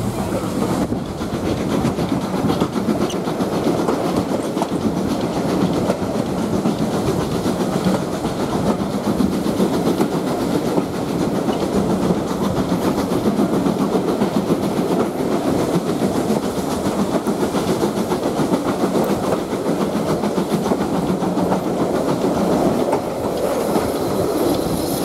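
Passenger coach of a heritage steam train running steadily along the line, its wheels rumbling and clicking on the rails, heard at an open window of the moving coach.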